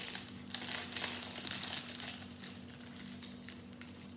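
Small clear plastic parts bag crinkling and rustling as it is handled.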